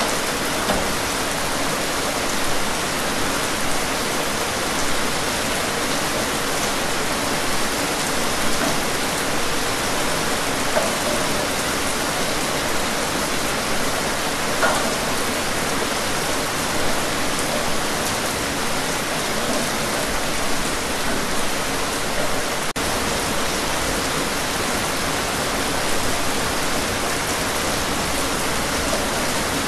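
Steady rain: an even hiss of falling rain with scattered droplet patter. There is a split-second dip in the sound about three quarters of the way through.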